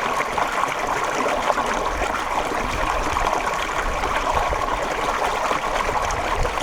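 Water flowing steadily with a continuous trickling, babbling sound, like a small stream running.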